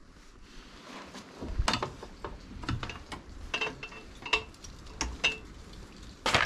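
Scattered clicks, knocks and light metallic clatter from handling the fittings of a boat's bow-mounted electric trolling motor, with a few brief squeaks and a sharp knock near the end.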